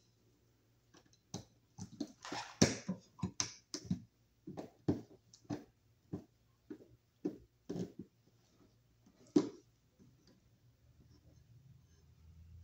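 Irregular sharp metal clicks and taps, about two a second, of needle-nose pliers and a bare copper ground wire against a steel electrical box, as the wire is looped onto the box's green ground screw. There is a short scrape in between.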